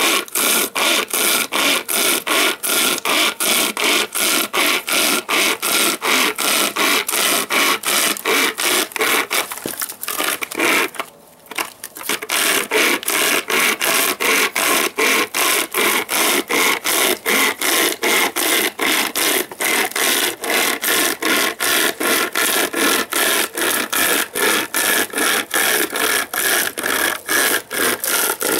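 Homemade pocket chainsaw, a bare saw chain pulled back and forth by cord handles, rasping through a log of firewood in quick, steady strokes. It stops briefly about ten seconds in, then carries on.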